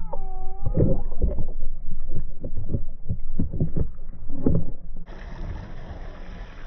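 Short-finned pilot whale call heard underwater: a brief gliding, wavering whistle near the start, followed by a run of irregular low knocks and thumps. About five seconds in it switches abruptly to a steady hiss of wind and sea above the water.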